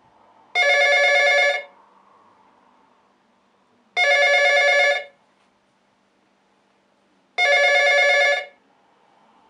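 Landline desk telephone ringing with an electronic ringer: three rings of about a second each, roughly three and a half seconds apart, left unanswered.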